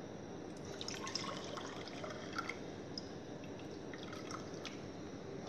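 Water running from a spout into a ceramic mug to fill it: a faint steady trickle with small drips and splashes scattered through it.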